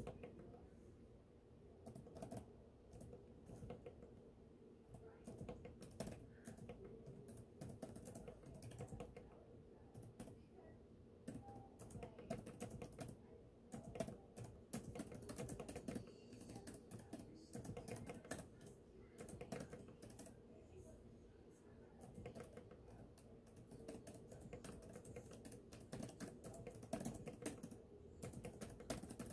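Typing on a laptop keyboard: fast, irregular key clicks in uneven runs with brief pauses, over a faint steady hum.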